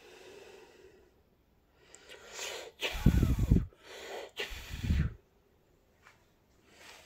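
Two loud sneeze-like snorts close to the microphone, about a second and a half apart, the first after a building breath.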